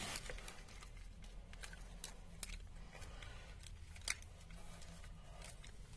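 Faint handling noise with a few small sharp clicks, the loudest about four seconds in, over a low steady hum.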